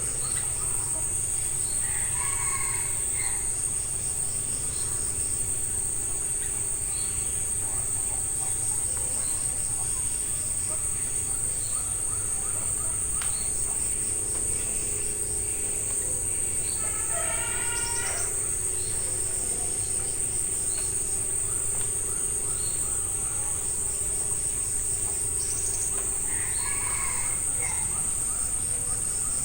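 Steady, high-pitched trilling of insects, with a few short bird calls about two seconds in, around the middle and near the end.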